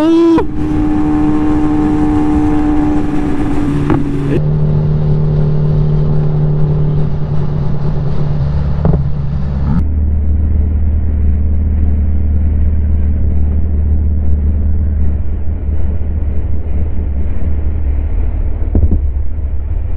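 Sportbike engine running at steady revs at highway speed. Its pitch drops in two steps, about four seconds in and again about ten seconds in.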